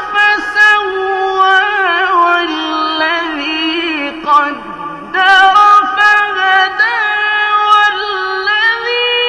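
Melodic Quran recitation (tajweed) in a high, clear voice, with long drawn-out notes and ornamental turns between phrases.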